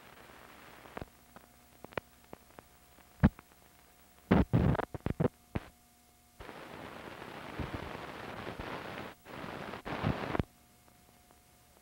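Film runout noise from blank leader: scattered clicks and pops, a cluster of loud crackling pops around four to six seconds in, then a stretch of hiss with a few pops that cuts off suddenly about ten and a half seconds in.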